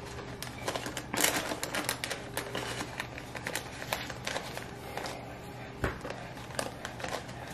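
Parchment paper crinkling and crackling in irregular clicks as hands fold and pinch the edges of a pizza-dough crust together in a foil pan.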